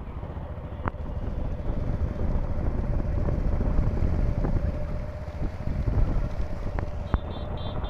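Motorcycle engine running on the move, with wind rumbling on the microphone and a faint steady whine under the engine noise. A short run of quick high beeps comes near the end.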